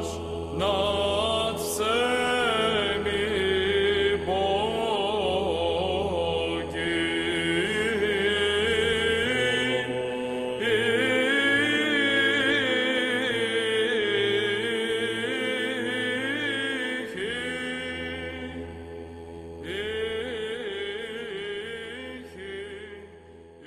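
Orthodox church chant: a sung melody that winds up and down over a low held drone, fading out near the end.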